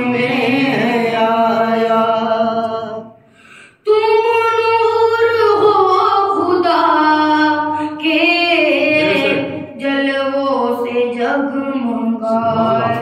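A boy singing an Urdu devotional salam without accompaniment, holding long drawn-out notes that waver in pitch, with a short pause for breath about three and a half seconds in.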